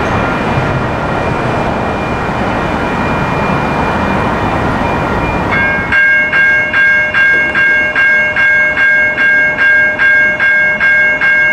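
Steady street noise, then about six seconds in the crossing activates and its GE electronic crossing bells start ringing, a steady ding about twice a second, warning that a light rail train is coming.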